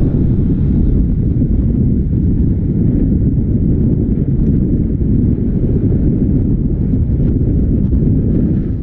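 Wind buffeting the microphone: a loud, steady rumble with no horn or voices.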